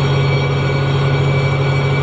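A heavy engine running steadily: a loud, even low drone with a constant hum over it.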